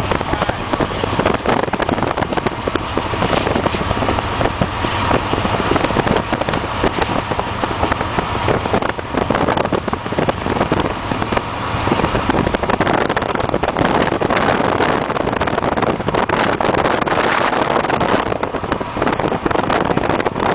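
Heavy wind buffeting and distortion on the microphone over the steady road noise of a car driving at speed.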